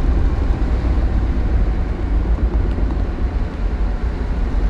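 Steady low rumble of a Lancia Thema 8.32 on the move, heard from inside the cabin: road, wind and engine noise with no clear rise or fall in pitch.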